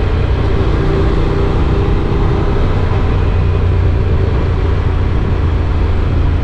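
Honda NC750X parallel-twin motorcycle running steadily under way, with a constant low rumble of engine and wind noise on the rider's microphone.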